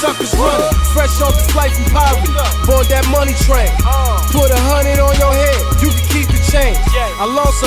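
Live hip hop music: a rapper's voice over a beat with long, deep held bass notes.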